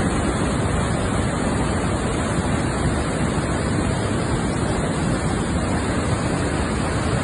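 Muddy floodwater of a swollen mountain river rushing past a collapsed roadway: a steady, loud, even rush of water.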